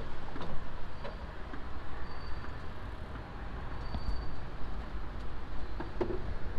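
Steady low rumble with a few faint clicks and knocks scattered through it.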